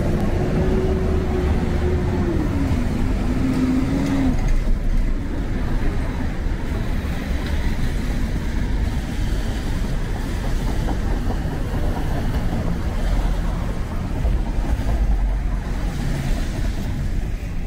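City intersection traffic: cars passing on wet pavement, a steady rumble of engines with tyre hiss. In the first four seconds a humming tone from a vehicle dips and rises in pitch, then stops.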